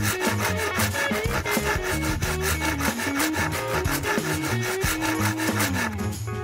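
Hand saw cutting tenons into a wooden rail: rapid back-and-forth strokes, each a rasp of the teeth through the wood. Background music with a steady bass line runs underneath.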